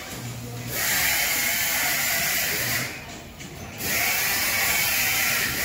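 Steady mechanical whirring and hiss of tire-shop equipment while a tire is worked on a tire changer. It drops away briefly twice: right at the start, and for about a second some three seconds in.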